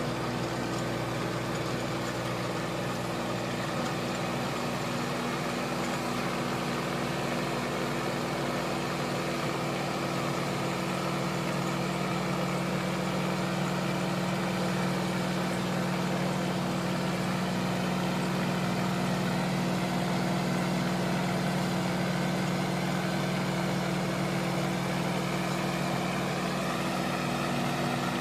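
Tractor engine running steadily under load while it drives a rotary tiller through the soil, getting a little louder about halfway through.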